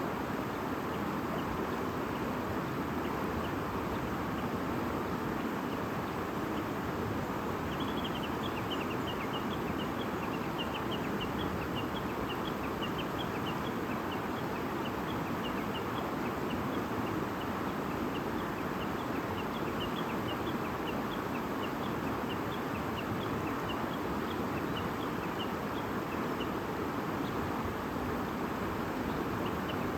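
A stream babbling steadily, with small birds chirping in quick high notes from about eight seconds in.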